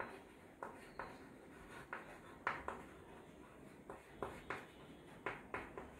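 Chalk writing on a chalkboard: short, sharp, irregular taps and scrapes of the chalk, about two to three a second, as letters and numbers are written.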